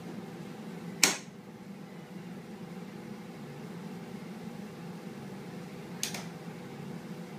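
Relays and contactors in a hydraulic elevator's controller cabinet clicking sharply twice, about a second in and again about six seconds in, over a steady electrical hum. The controller is answering a call for the car to go up, just before the pump motor starts.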